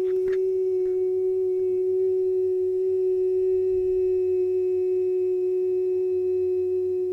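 A woman's voice toning one long, perfectly steady high note with clear overtones, as in Sound Reiki vocal sound healing, with a couple of faint clicks at the start.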